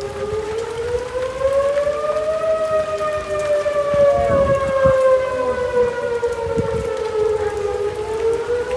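Outdoor tornado warning sirens wailing. The pitch rises slowly for about two seconds, sinks over the next five or six, and starts to climb again near the end. A second siren sounds at a slightly lower pitch alongside.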